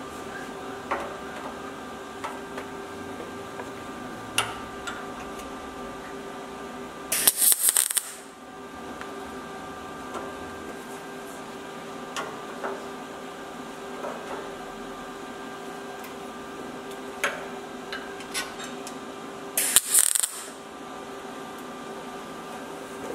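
Two short MIG spot welds on the butt joint of a steel repair panel, each about a second of crackling arc, about seven and twenty seconds in. Between them there are a few light metallic clicks of handling, over a steady hum.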